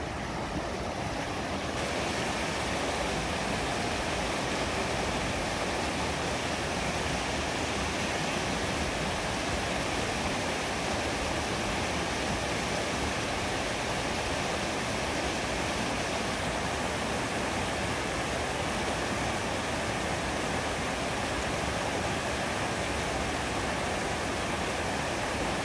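A small river swollen by heavy rain, running fast and pouring over a low step in its concrete channel: a steady rushing of water that grows louder in the first two seconds.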